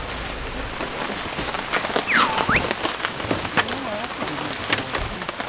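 Light rain pattering on tent and tarp fabric, a steady hiss dotted with small ticks and clicks, with the rustle of tent fabric being handled. A short falling-then-rising whistle-like note sounds about two seconds in.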